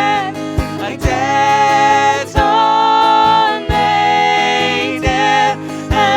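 Band playing a song: a held lead melody with slight vibrato over guitar, with low drum hits underneath.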